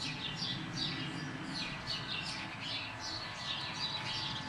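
Small birds chirping continuously: quick, high, downward-sliding chirps repeated a few times a second, over a low steady background hum.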